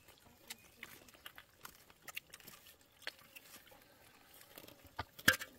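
A knife cutting meat by hand over a pot: scattered small clicks and taps, with a louder sharp knock near the end.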